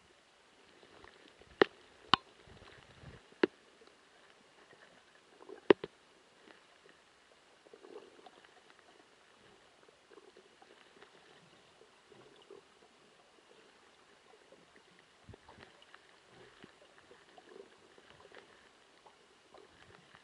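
Underwater ambience picked up by a submerged camera: a faint muffled hiss with light crackling, broken by four sharp clicks within the first six seconds.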